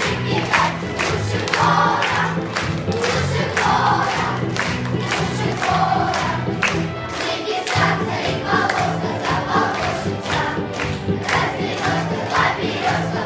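Children's choir singing over an instrumental accompaniment, with a bass line moving in a regular pattern under the voices.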